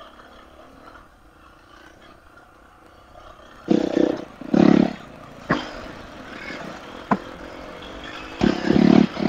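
Four-stroke dirt bike engine, quiet for the first few seconds, then revved in several short bursts with a couple of sharp knocks between.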